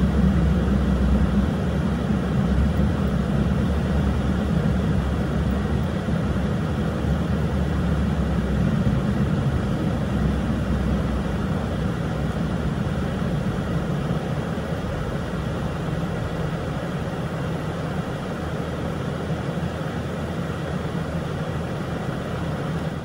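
Steady road and engine noise inside a car's cabin as it drives on a snowy, slushy road. The noise gets gradually quieter as the car slows toward a stop.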